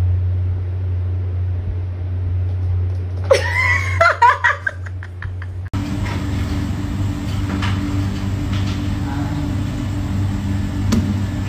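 A steady low hum with a short cry that rises and falls a few times, about three and a half seconds in. It then changes abruptly to a steady background drone.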